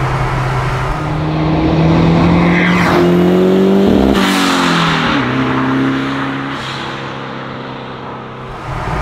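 Rear-mounted 1.9-litre Volvo 16-valve turbo four-cylinder in a Hillman Imp accelerating hard up to the roadside and passing by. Its pitch drops suddenly about four seconds in as it goes past, then the engine fades as the car drives away.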